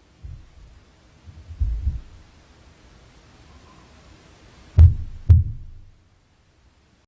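Dull, low thuds of impact noise coming through the ceiling from the apartment upstairs. A faint thud comes near the start and a few heavier ones about one and a half to two seconds in. The loudest pair lands about half a second apart near the end.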